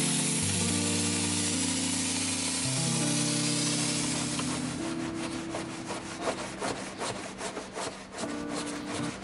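A steady hiss of tyre-cleaner spray fades out about halfway through. Then a stiff-bristled tyre brush starts scrubbing the rubber sidewall in quick back-and-forth strokes, about three a second.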